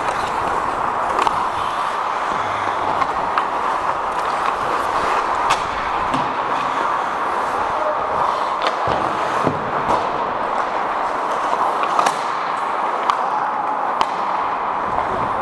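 Ice hockey game in play: a steady rush of skating and rink noise with scattered sharp clacks of sticks and puck.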